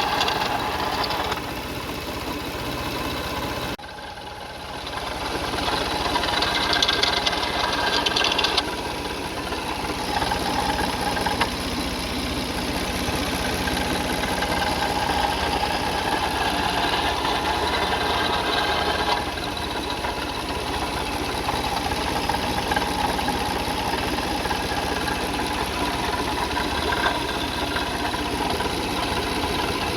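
Car engine idling steadily, heard close up in the engine bay. The level shifts abruptly a few times, dropping sharply about four seconds in and changing again later.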